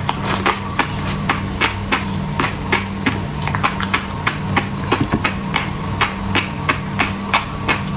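Chewing with a run of sharp, crunchy clicks, irregular at about three to four a second, over a steady low hum from a refrigerator that was left running.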